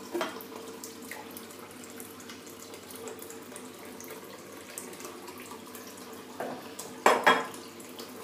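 Hot water tap running steadily into a bathroom sink, with a couple of knocks, the loudest about seven seconds in.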